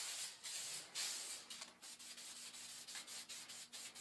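Aerosol spray paint can hissing in a string of short spritzes as green gloss enamel is sprayed onto a rifle.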